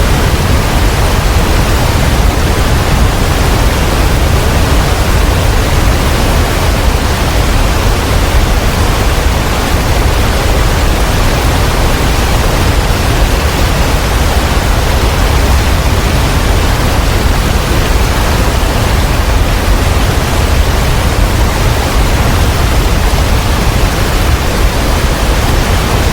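Abbey Falls waterfall: a loud, steady rush of falling water with no breaks.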